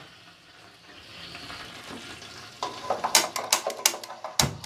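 Oil and water with fennel seeds sizzling faintly in a steel pan. From about halfway through, a metal slotted spatula stirs and clicks against the pan in a quick irregular run, ending in one heavier knock.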